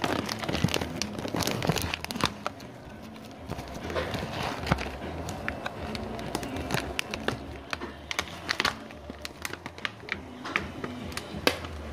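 Food frying in a pan, crackling with many small irregular pops.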